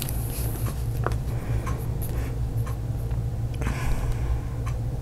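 Sheets of paper being handled and shuffled: light rustles and a few soft clicks, with a longer rustle about three and a half seconds in, over a steady low hum.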